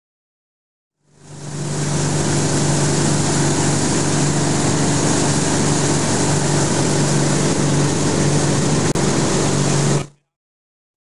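Ski tow boat's engine running steadily at speed, a constant hum under the rush of water and wind from the wake. It fades in about a second in and cuts off abruptly near the end.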